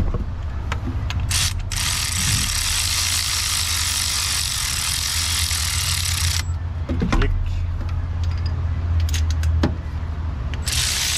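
Spark plug being turned into the cylinder head of a GM 6.0 LQ4 V8 with a hand tool on a long extension: scattered tool and metal clicks, over a steady low hum and a hiss that cuts off suddenly about six seconds in and comes back near the end.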